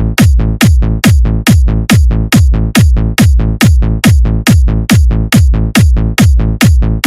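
Loud electronic dance music driven by a heavy kick drum, a little over two beats a second; each kick drops in pitch into a long, deep bass tail.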